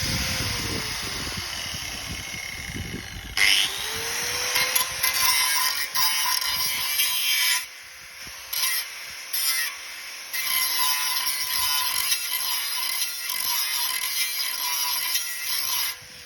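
Power grinder sharpening the steel blade of a farm spade. The motor is winding down at first, speeds back up about three and a half seconds in, then grinds with a harsh hiss that breaks off briefly a few times near the middle as the blade is lifted away.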